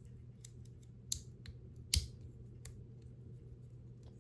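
Leatherman multitool being handled: a few sharp metallic clicks and taps, the loudest about two seconds in, over a faint steady low hum.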